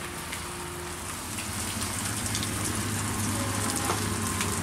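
Steady rain hissing, with an intercity coach approaching on the wet toll road, its low rumble growing louder over the last few seconds. A single sharp tap near the end.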